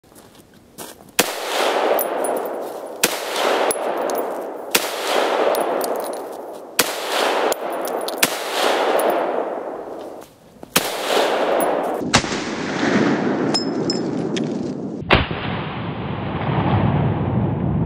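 Tokarev SVT-40 semi-automatic rifle in 7.62x54R firing about eight shots at a steady pace, roughly one every one and a half to two seconds. Each shot is followed by a long echo.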